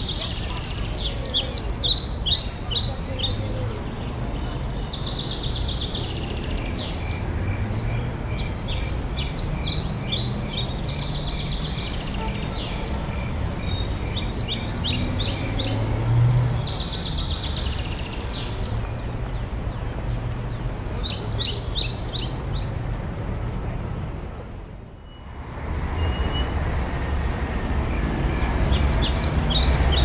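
A flock of small songbirds chirping in the treetops, short high calls coming in repeated bursts every couple of seconds, over a steady low background rumble.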